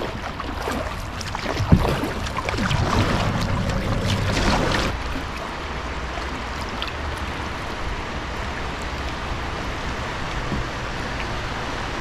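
Kayak on a river: water swishing and splashing around the paddle and hull, busier and louder for the first few seconds with one sharp knock about two seconds in, then a steady wash of moving water.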